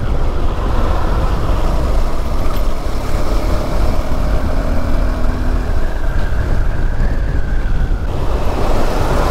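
Wind buffeting the microphone of a KTM 390 Adventure motorcycle ridden at speed, a steady rush with a deep rumble, the bike's engine faintly audible underneath for a few seconds in the middle.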